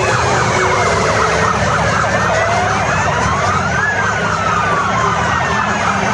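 A siren wailing, its pitch rising slowly about midway and then falling for several seconds, over a steady background din.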